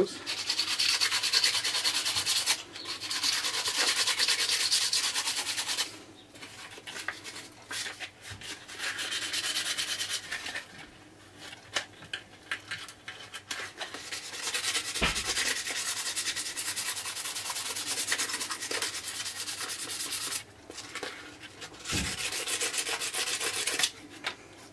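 Light emery paper rubbed by hand over a bulb horn's repaired tube, smoothing the hardened filler. It makes scratchy rubbing strokes in several spells of a few seconds each, with short pauses between them.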